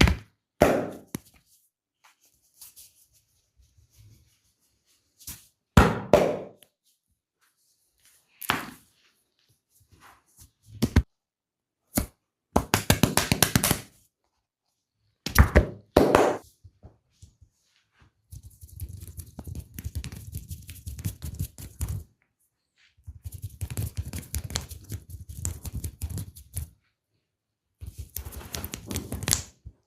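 Hands-on massage strokes: several separate thunks of hands slapping, then longer runs of rapid tapping and rubbing.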